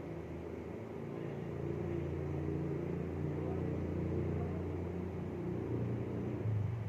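Low engine rumble with a drifting pitch, growing louder about a second and a half in, like a motor vehicle running nearby.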